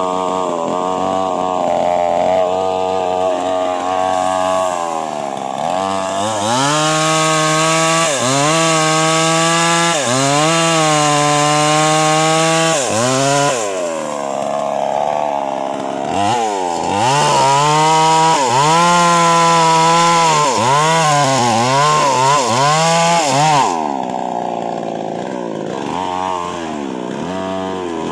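Two-stroke chainsaw with a 22-inch bar felling a mahogany tree: the engine runs at a lower speed for the first few seconds, then climbs to full revs and dips again and again as the chain bites into the trunk, eases off briefly about halfway, cuts hard again, and drops back to a lower speed for the last few seconds.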